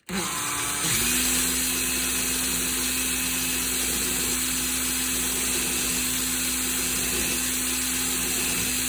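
Small power tool motor spinning up, then running at a steady speed with a steady whine and a grinding hiss, cutting a light chamfer on the back of a gun screw.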